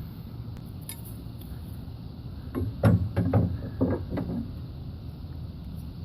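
Metal hand tools clinking and knocking against metal, a short cluster of light clinks from about two and a half to four and a half seconds in, over a low steady hum.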